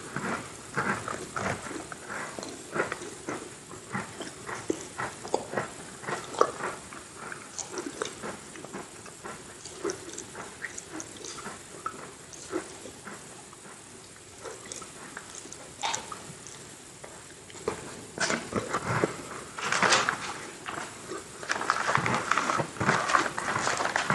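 Close-miked chewing and biting of Oreo cookies: crisp crunches mixed with wet mouth sounds, getting denser and louder in the last few seconds.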